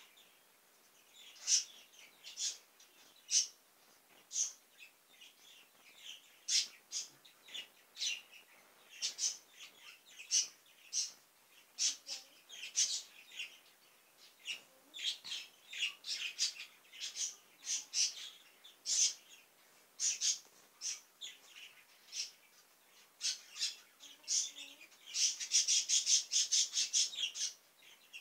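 A bird calling in short, irregular chirps and squawks, two or three a second, breaking into a fast chattering run near the end.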